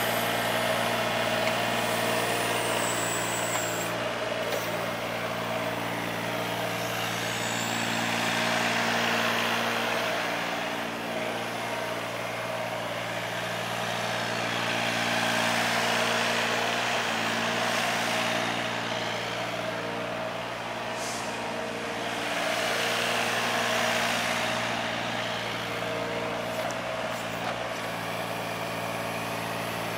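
Kobelco SK17SR mini excavator's small Yanmar diesel engine running steadily, with a broad rush of noise that swells louder and falls back three times.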